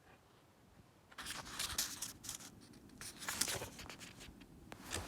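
Paper being handled, rubbing and rustling in three short spells.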